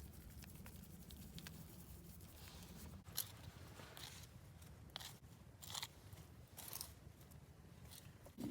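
Faint, irregular crunches, about six in a few seconds, over a low steady hum.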